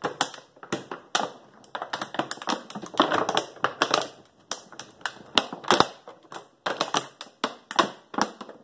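Thin PET plastic of a clear jug crackling and clicking as a cut-off jug neck is forced and twisted into a cross-cut hole in its side. The clicks are sharp, irregular and come several a second, quite noisy, which is normal for this fit.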